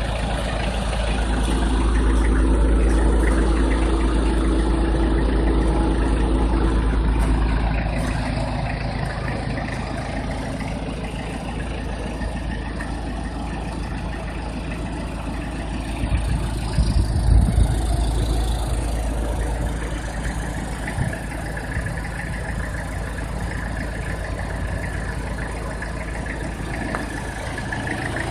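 Vehicle engine idling steadily, swelling a little early on, with a few knocks or thumps around the middle.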